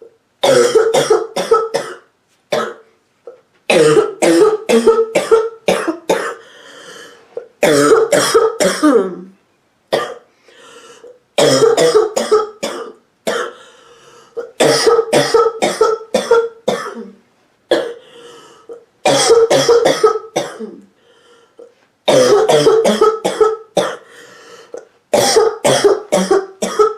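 A sick woman's hacking, barking cough, in about eight bouts of four to six short, sharp coughs, each bout a few seconds apart.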